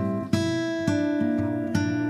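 Background music: acoustic guitar strummed chords, a new chord struck about a third of a second in and another just under a second in.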